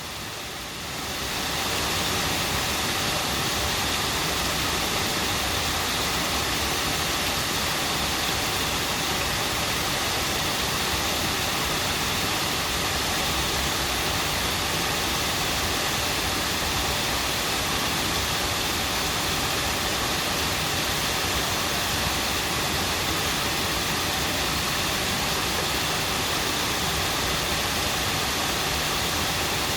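Stream water flowing and babbling in a steady, unbroken rush; it fades in over the first second or so.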